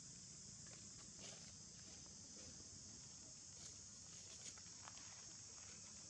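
Near silence: a faint steady high-pitched insect drone, with a few soft rustles and ticks in the dry leaf litter, mostly in the second half, as macaques move over it.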